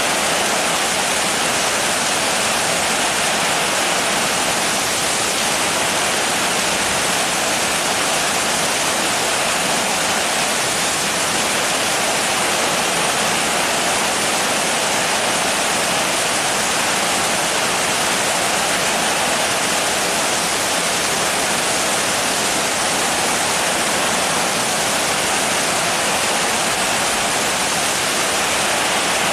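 Steady heavy rain: a dense, even hiss with no separate drops, thunder or changes in strength.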